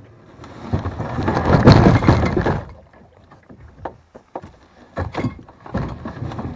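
Plastic sit-on-top kayak hull scraping and sliding over sandstone and sand as it is pushed off into the river, loudest for about two seconds near the start. It is followed by several hollow knocks and bumps on the hull as the paddler climbs aboard.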